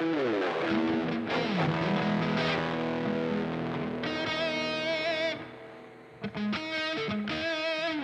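Electric guitar played through distortion, with held notes that bend and waver in pitch. The playing thins out about five and a half seconds in, then picks up again.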